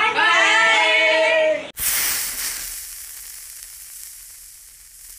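Several children calling out together in a drawn-out, sing-song shout, cut off suddenly about a second and a half in. A steady hiss follows and slowly fades.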